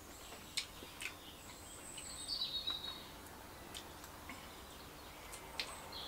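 Faint outdoor background of small birds chirping, with a couple of short high calls in the first half, over a soft even hiss and a few light clicks.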